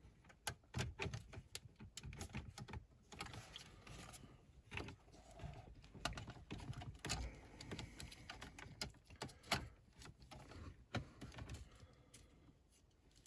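Plastic wiring-harness connectors being handled and fitted to the back of a BMW CD43 Business CD car radio head unit: irregular light clicks and rattles of plastic plugs against the unit's metal case.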